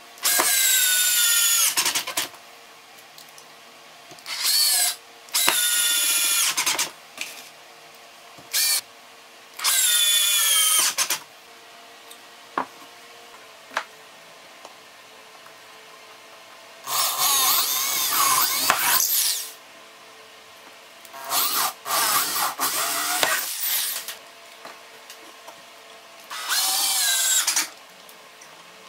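Cordless drill-driver driving wood screws into plywood in about eight short runs of one to two seconds each. The motor's pitch falls toward the end of each run as the screw draws tight.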